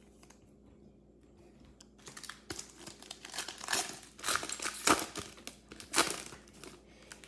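Plastic trading card pack wrapper crinkling as it is handled and opened, in a run of irregular crackles starting about two seconds in, with the loudest crackles near the end.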